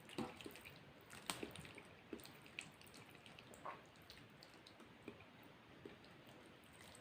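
Wet chewing and mouth clicks of someone eating spaghetti close to the microphone, with a few sharper smacks in the first two seconds and softer ones after.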